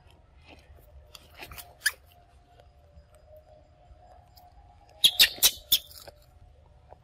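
Baby macaque biting into a mango slice: a quick run of about four sharp, wet, crackly bites about five seconds in, with a few fainter clicks earlier. A faint steady tone runs underneath.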